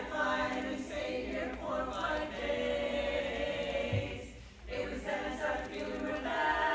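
Women's barbershop double quartet singing a cappella in close harmony. The voices drop out briefly about two-thirds of the way through, then come back in.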